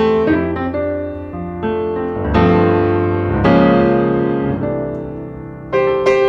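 Slow piano music: chords struck and left to ring out and fade, with stronger chords about two and a half seconds in, three and a half seconds in, and near the end.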